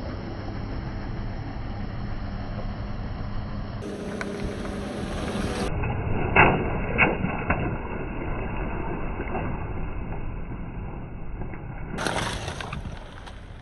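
A car tyre slowly rolling over gel water beads and squishy balls, over a low engine and tyre rumble, with two sharp cracks a little past the middle as things under the tyre give way.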